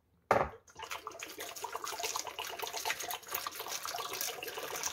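A stream of cold water poured into a plastic bowl over freshly steamed eggs to cool them, splashing on the eggs and the bowl. It hits with a sharp splash about a third of a second in, then runs on as a steady pour.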